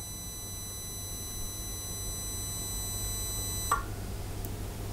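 Omron/Yaskawa V1000 inverter drive energising its 0.37 kW three-phase motor during a stationary auto-tune, giving a steady high-pitched electrical whine over a low hum. The whine cuts off with a small click a little more than three and a half seconds in as the auto-tune finishes.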